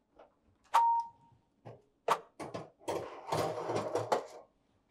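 Built-in electric oven door opened with a click and a short beep. A few seconds later a wire rack of frozen onion rings is slid onto the oven's runners with metallic clicks and a stretch of clattering.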